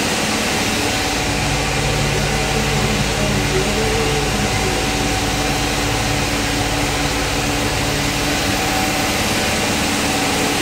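Machinery running steadily: a low motor hum, strengthening about a second in, over an even rushing noise.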